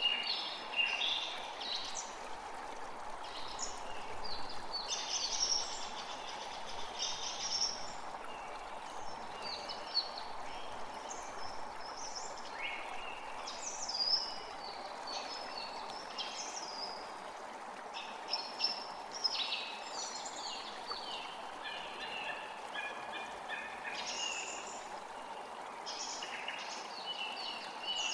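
Several birds calling and singing in quick succession over the steady rush of running water.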